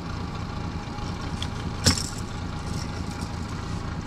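Boat motor idling steadily, with a single sharp knock about two seconds in.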